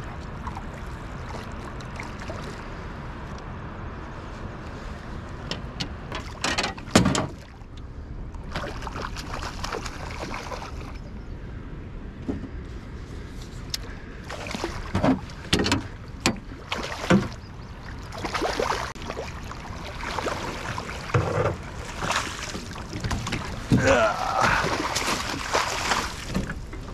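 A hooked Atlantic salmon splashing at the surface beside a small boat as it is played to the landing net: a string of sharp splashes and knocks, the loudest about seven seconds in and more frequent in the second half, over a steady hiss of wind and moving water.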